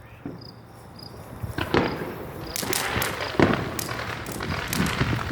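Consumer fireworks going off: a rapid run of sharp cracks and pops that begins about a second and a half in and grows denser.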